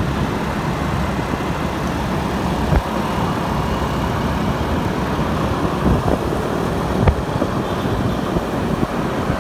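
Riding a motor scooter in dense motorbike traffic: steady engine and road noise from the scooter and the bikes around it, with a brief knock about three seconds in and another about seven seconds in.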